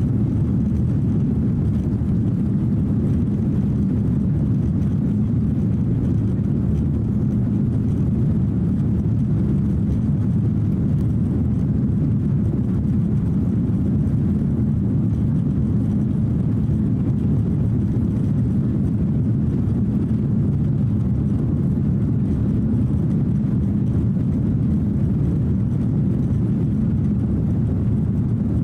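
Cabin noise of an Airbus A330-300 with Rolls-Royce Trent 700 engines climbing after takeoff: a steady low rumble of engines and airflow, unchanging throughout.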